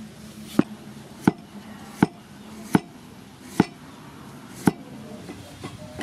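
Cleaver chopping ginger into slices on a thick wooden chopping block: six sharp knocks, about one every three-quarters of a second.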